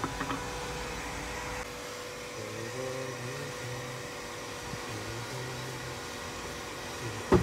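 Steady background hum like a running motor, with a fainter low drone that comes and goes, and a single short knock near the end.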